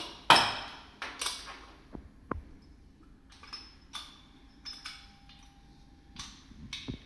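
Small parts of an airsoft pistol handled by hand during reassembly: a sharp click, then scattered light clicks, taps and scrapes of plastic and metal parts against the frame.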